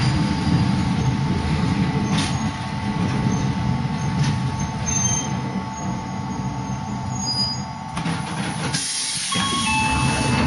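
Hakone Tozan Railway electric train running on the line, heard from inside the car: a steady rumble of wheels and running gear with occasional clicks over the rail joints. Near the end a hiss comes in.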